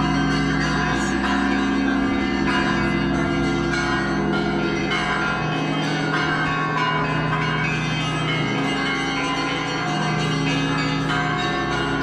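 Russian Orthodox church bells ringing from the Trinity-Sergius Lavra bell tower: many bells sounding together without a break, deep bells held under a dense layer of higher ones.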